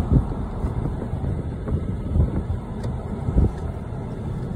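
Wind noise on the microphone: a steady low rush with several stronger gusts buffeting it.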